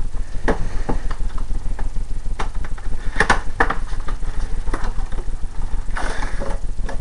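Hands handling a cardboard collector's box case: a scattering of short clicks and knocks, with a brushing rustle near the end, over a steady low hum and crackling hiss from the recording.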